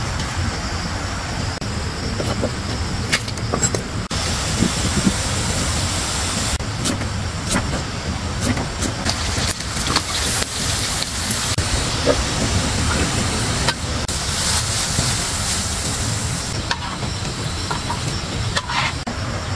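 A cleaver knocking on a wooden chopping board as pork is cut, then meat sizzling and hissing as it is stir-fried in a wok, over a steady low rumble.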